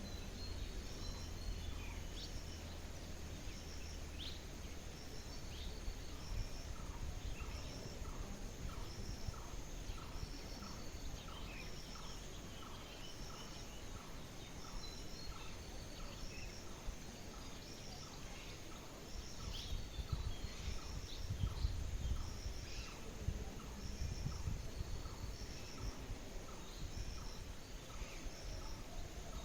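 Birds chirping over a steady low rumble. One bird repeats a short call about twice a second through most of the stretch, while a high, evenly repeating triple chirp recurs throughout.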